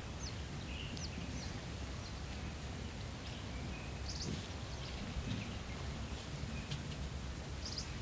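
Quiet natural ambience: a steady low background rumble with faint, short bird chirps every second or so.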